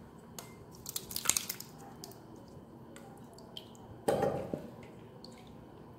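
Thick cooked tamarind pulp going into a stainless steel mesh strainer, with wet squishing and dripping and a few small clicks about a second in. A dull thump follows about four seconds in.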